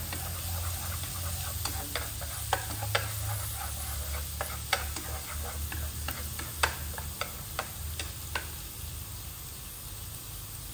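Minced shallot and garlic sizzling in hot oil in a nonstick frying pan, stirred with chopsticks that tap and scrape against the pan at irregular moments; the tapping thins out near the end while the sizzle goes on.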